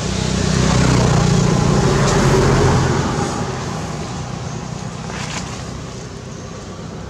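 A motor vehicle passing: engine and road noise swelling over the first second, holding for a couple of seconds, then fading away.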